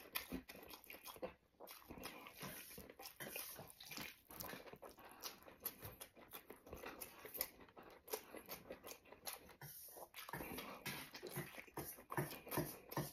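Close-miked wet chewing and mouth smacking while eating pig lung: a steady run of soft clicks and squelches, pausing briefly twice.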